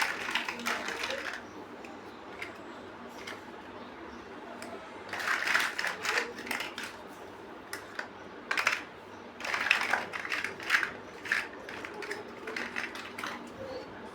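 Plastic building bricks clicking and rattling as pieces are handled and pressed together, in several short clusters of quick clicks with gaps between.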